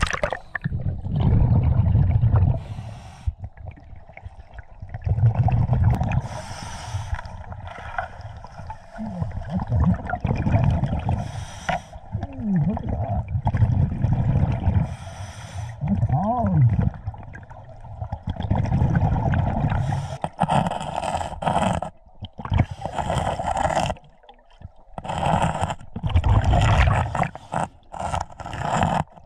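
Scuba diver breathing through a regulator underwater: a low burst of exhaled bubbles alternating with the hiss of each inhalation, one breath every four seconds or so.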